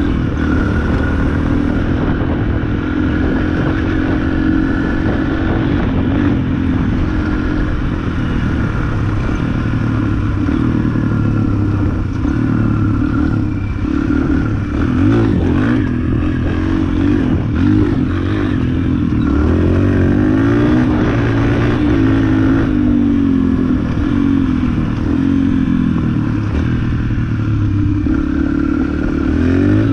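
Yamaha dirt bike's engine running while being ridden, its pitch rising and falling with the throttle several times in the second half and climbing again near the end.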